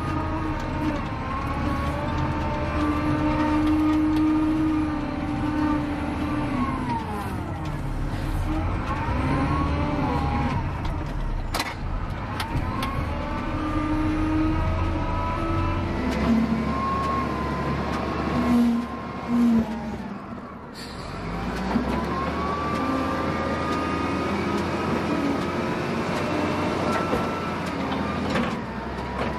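Diesel engine of a heavy earthmoving machine running and revving under load, its pitch rising and falling repeatedly. There is a sharp clank about twelve seconds in.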